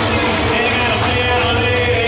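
Loud rock-and-roll style music with a singing voice, playing steadily.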